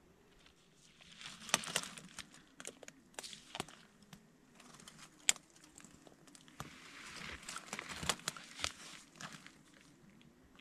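Rustling and crinkling of a blanket and tent fabric as a person shifts about inside a tent, with scattered sharp clicks and taps. It comes in two bouts, about a second in and again from around seven seconds in.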